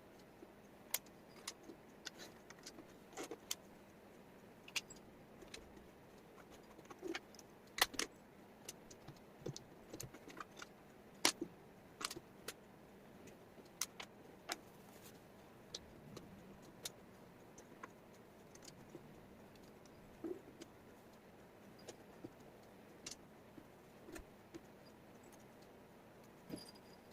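Small wooden jigsaw puzzle pieces clicking and tapping as they are handled and set down, in faint, irregular sharp clicks, a few of them louder.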